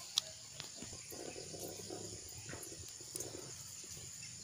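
Faint steady high-pitched drone of insects in the field, with light handling noises from a plastic sachet and measuring cup over a knapsack sprayer tank: a sharp click about a quarter second in, then soft rustles and small ticks.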